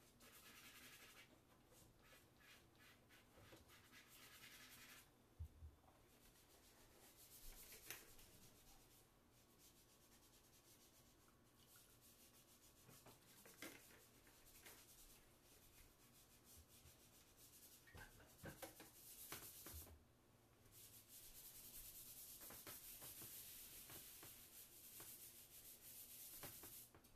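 Faint scratching and rubbing of charcoal and chalk on Bristol board under the artist's fingers and hand. It comes as a run of quick strokes at first, then scattered strokes, and a long steady rub near the end.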